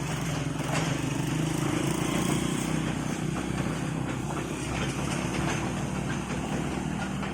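Engine running steadily at an even speed, with a few faint knocks over it.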